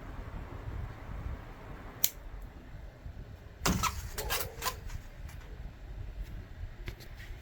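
A sharp click about two seconds in, then a quick run of clicks and rattles, over a low rumble.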